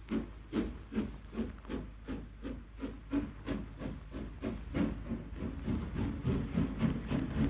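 LMS Princess Royal class Pacific No. 6207 pulling away under steam: a steady hiss with an even chuff of exhaust beats that quicken from about two to about three a second as it gathers speed.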